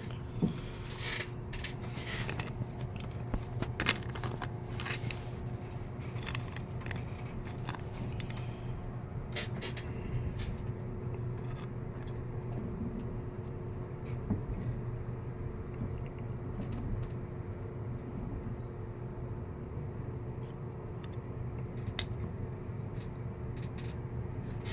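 Clicks and scrapes of a box fan motor's parts and wires being handled as it is put back together, busiest in the first ten seconds and sparser after, over a steady low hum.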